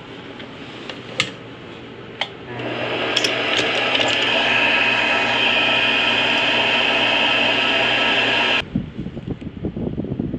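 Small bench metal lathe running while a twist drill in the tailstock bores into a spinning brass rod: a loud, steady motor-and-cutting sound that starts about two and a half seconds in and stops abruptly near the end. A few clicks before it and handling rustles and clicks after it.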